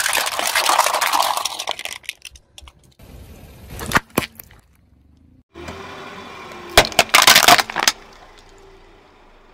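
Car tyre rolling over and crushing objects in quick succession. First come plastic cups of water bursting with a splash and crackle. Then a few sharp cracks, and near the end a cluster of loud cracks and crunches of glass breaking under the tyre.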